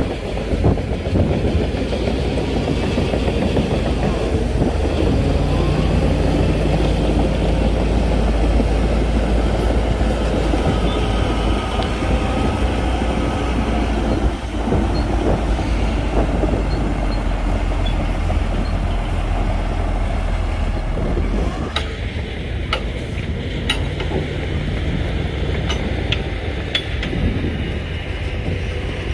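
Heavy diesel earthmoving machinery running under load: a steady low engine drone and rumble, with a few sharp metallic clanks about two-thirds of the way in.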